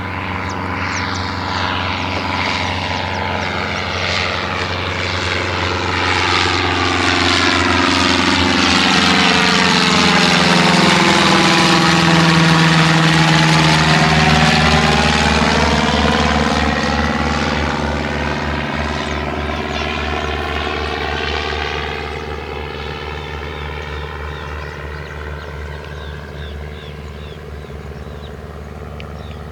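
A Cessna 152's four-cylinder piston engine and propeller droning as the light plane passes by. The sound builds to its loudest about halfway through, drops in pitch as the plane goes past, then fades away.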